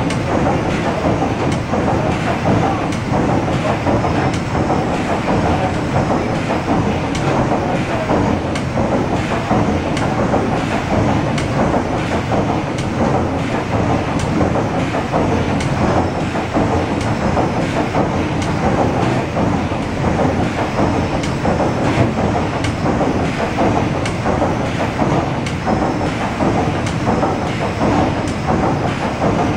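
The 1946 Rankin & Blackmore triple-expansion steam engine of the paddle steamer Waverley, running steadily: a loud, continuous mechanical din from its moving cranks and rods, with a rhythmic beat.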